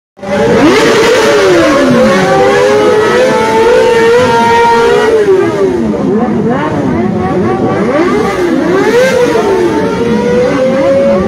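A pack of sport motorcycles riding past together, many engines revving at once so that their pitches overlap and rise and fall over one another.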